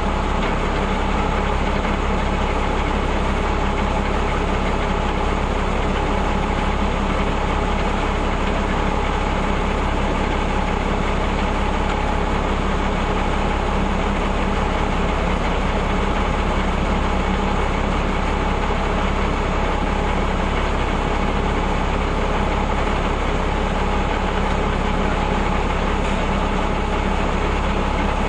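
Engine of a REO M35 2½-ton military truck running steadily, with a steady whine over the engine note.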